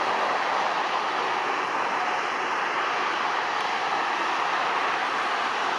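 Steady rushing roar of motorway traffic, an even noise with no distinct events.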